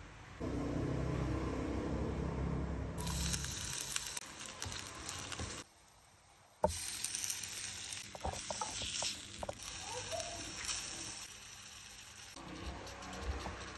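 Garlic and sliced pork sizzling in a hot frying pan, with scattered taps and scrapes of a wooden spatula. The sound cuts out for about a second partway through.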